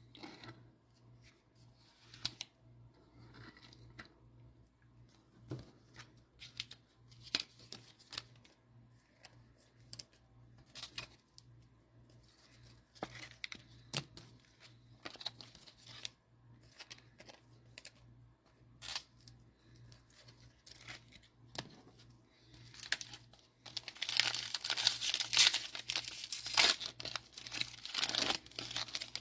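A few scattered light clicks and rustles of cards and packs being handled, then, from about 24 seconds in, a Mosaic football-card cello pack being torn open, its wrapper crinkling loudly and continuously.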